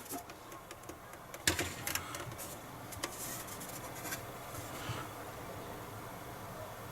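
A few sharp clicks and taps from handling the parts of a disassembled PlayStation 3 Slim, the loudest about one and a half seconds in, over a low steady background hum.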